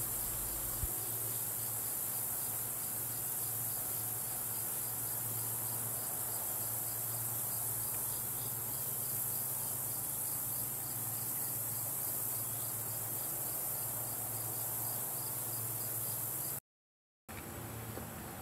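Steady, high-pitched chorus of summer insects droning without a break, with a faint low hum underneath. The sound drops out for a moment near the end.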